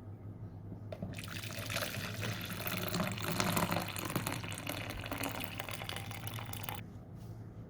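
Water running from a kitchen tap, turned on about a second in and shut off sharply near the end.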